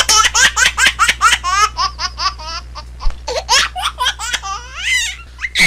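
High-pitched laughing squeals in a quick run of short, rising and falling bursts, about four or five a second, cutting off abruptly near the end.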